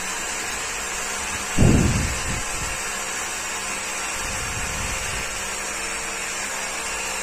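Rotary hammer drill running steadily as it bores a fixing hole into a concrete wall, with one low thump about one and a half seconds in.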